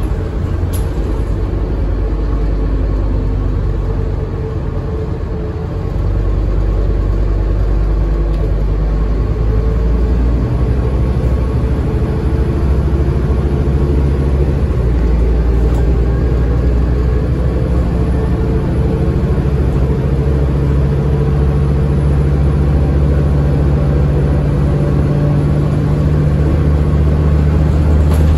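Scania N230UD double-decker bus's five-cylinder diesel engine running as the bus drives, heard from inside the upper deck. It gives a steady low drone that eases off briefly about four seconds in, then pulls harder, its pitch slowly rising and growing louder toward the end.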